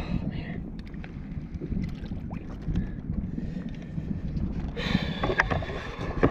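Wind on the microphone and water moving around a kayak, with a conventional saltwater fishing reel being cranked to wind in line. Noise swells for about a second near the end.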